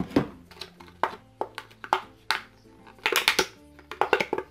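A clear plastic blister tray and a metal-bodied ballpoint pen being handled as the pen is taken out of its packaging: a string of sharp plastic clicks and rattles, busiest about three seconds in.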